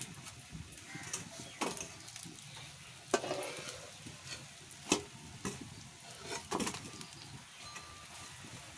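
Colocasia-leaf rolls frying in oil in a kadhai, with a quiet, steady sizzle. Several sharp clinks and scrapes come from a metal spatula against the pan as the fried pieces are lifted out.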